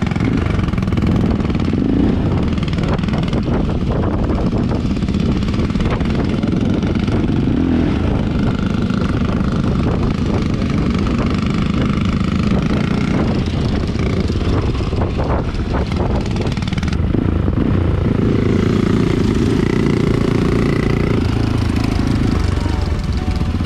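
A 275cc motorcycle with a handmade exhaust running while being ridden, its engine pitch rising and falling. The sound changes abruptly about seventeen seconds in.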